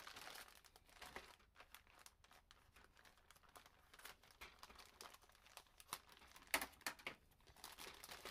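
Clear plastic bag crinkling as a plastic model-kit sprue inside it is handled and the bag opened, in quiet scattered crackles with a louder cluster about six and a half seconds in.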